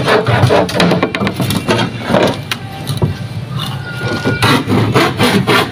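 Handsaw cutting timber with quick, even back-and-forth strokes. The sawing stops about a second in and starts again near the end.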